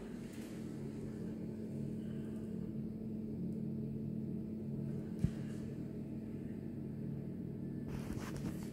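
Steady low background hum with a faint held tone, and a single short click a little past five seconds in.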